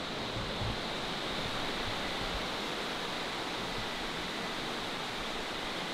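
Steady rush of the Rio Frio river flowing over rocks through the cave. A faint thin high tone joins in about two seconds in.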